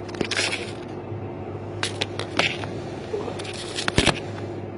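Handling noise from the recording device being moved and set in place: rustling and scraping with several sharp knocks, the loudest about four seconds in, over a steady low hum.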